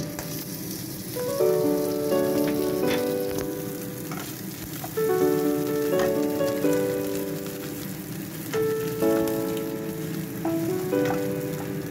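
Diced king oyster mushroom sizzling in salted egg yolk and hot fat in a pan, with a wooden spatula scraping as it is stirred. A slow melody of background music plays over it.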